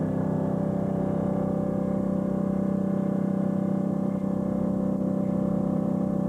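Fishing trawler's engine and deck machinery running: a steady droning hum with many overtones.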